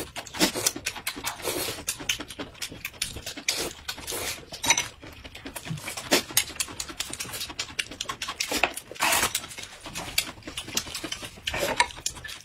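People eating: chewing and mouth clicks that come thick and irregular, with utensils against dishes.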